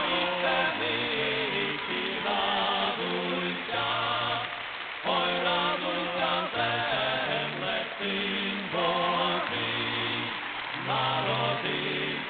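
Male voices singing a Christmas carol phrase by phrase, over low, stepping accompaniment notes.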